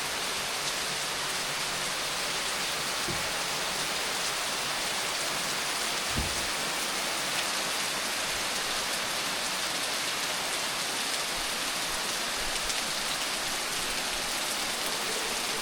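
Heavy rain falling steadily, a dense even hiss of drops on surfaces, with a faint low thump about six seconds in.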